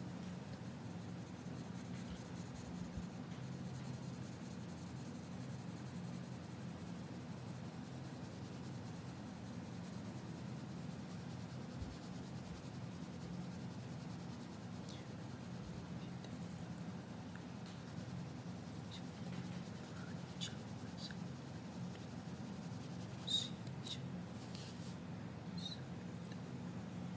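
Coloured pencil shading on paper, a soft steady scratchy rubbing over a low steady hum. A few light clicks come near the end.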